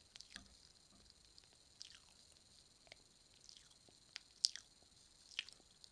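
A mouth chewing sour candy: a few faint, scattered wet clicks and smacks, the loudest about four and a half seconds in.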